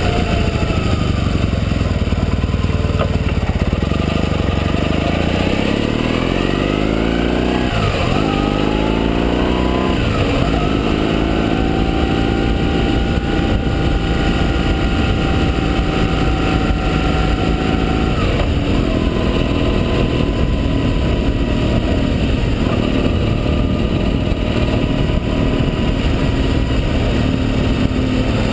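Motorcycle engine and wind rush heard from a camera mounted on the bike. The engine note climbs and drops twice in the first ten seconds as the bike accelerates through the gears, then holds steady at cruising speed, with another change about 18 seconds in.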